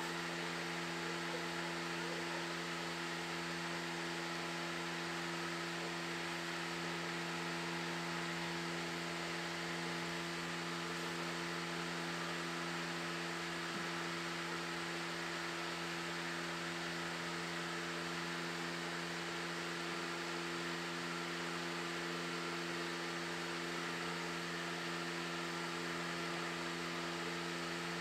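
A steady machine hum with an even hiss underneath, holding the same pitch and level without a break.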